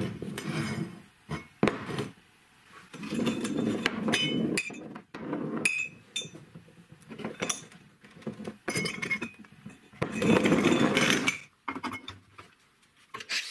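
Steel tubes rolled and set down on a wooden workbench: several stretches of low rolling rumble broken by many sharp metallic clinks as the tubes and ball bearings are put down and knocked together.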